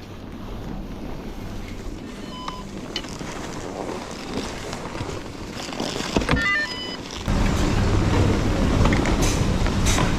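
A vehicle's steady running and road rumble, with a short electronic beep about two and a half seconds in and a quick run of beeping chirps around six and a half seconds. Just after the chirps the low rumble gets suddenly louder.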